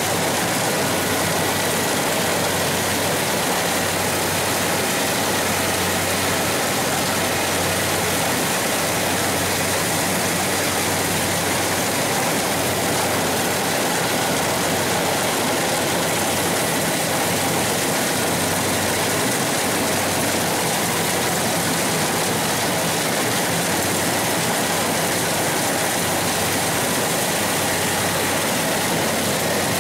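Rice combine harvester running steadily while its reel and cutting header work through standing rice: constant engine and machinery noise with a low hum underneath, heard close to the machine.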